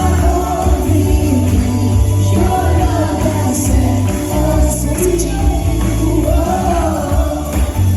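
Live contemporary worship music: a band with heavy bass playing while a group of singers sing without clear words.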